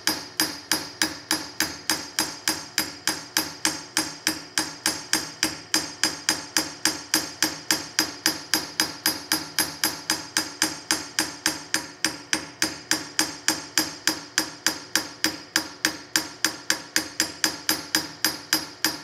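Ball peen hammer tapping steadily on a steel rifle barrel, about four light strikes a second, each with a short metallic ring. It is peening the edge of a carbon-steel flash-hole liner so that the liner fills up its counterbore.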